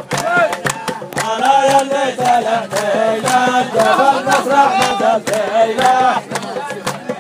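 A group of men's voices chanting a song together, with sharp rhythmic hits beneath the singing.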